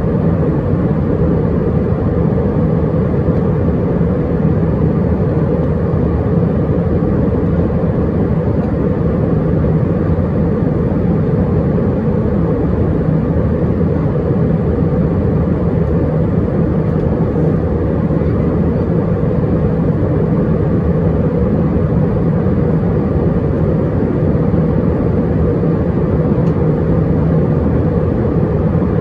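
Steady cabin noise inside an Airbus A320-212 early in its descent: an even, loud roar of airflow and the CFM56 engines, with a steady low hum running under it.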